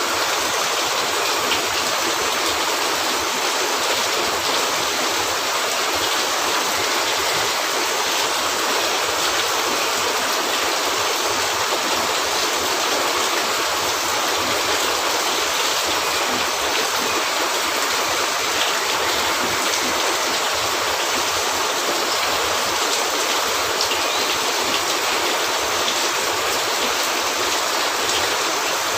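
Steady, dense hiss of heavy rain falling, unchanging throughout.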